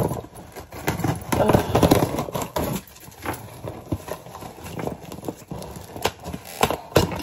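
Irregular knocks and clatter from hands handling things on a table close to the microphone.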